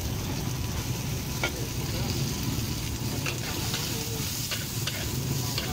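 Shrimp and vegetables sizzling in a hot wok while a metal spatula stirs and tosses them, with scattered clacks and scrapes of the spatula against the wok.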